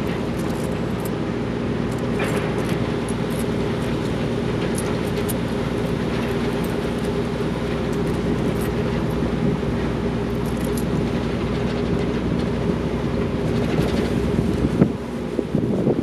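Car ferry's engines running with a steady low drone and hum as the ship moves away from the berth. About a second before the end the hum drops away suddenly.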